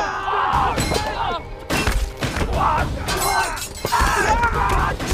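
Staged melee battle: weapons clashing and striking in quick, irregular hits, with men shouting and grunting through the fight.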